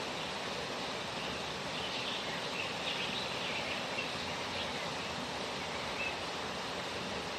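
Waterfall water running as a steady rushing noise, with a few short high bird chirps in the middle.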